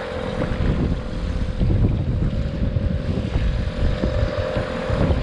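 Mercury 3.3 hp two-stroke outboard motor running steadily at trolling speed, with a steady held tone. Wind buffets the microphone and water splashes along the inflatable's hull.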